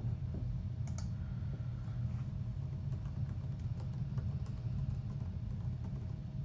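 Faint computer keyboard typing and clicks, one sharper click about a second in, over a steady low hum.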